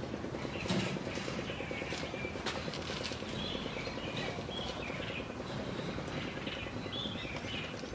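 Birds chirping in short repeated calls over a steady outdoor background hiss, with a few sharp clicks in the first half.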